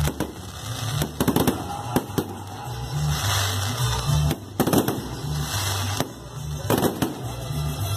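Fireworks shells bursting overhead: a dozen or so sharp bangs, some single and some in quick clusters, with background music and its steady bass running underneath.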